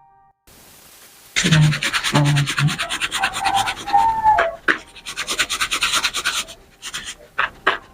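Cut chinchin dough pieces shaken in a mesh sieve to knock off excess flour: a rapid scratching rasp that starts about a second and a half in, then breaks into short separate bursts near the end.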